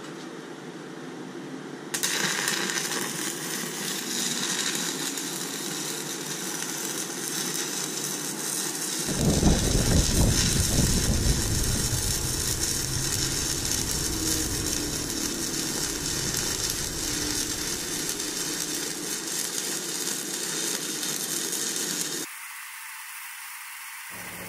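Stick-welding arc from a ZENY 160 A DC inverter welder burning a 1/8-inch E7018 rod at about 105 amps on a 120 V, 15 A circuit: a steady hiss that strikes about two seconds in and stops suddenly about two seconds before the end. It swells louder, with a lower rumble, for a few seconds in the middle.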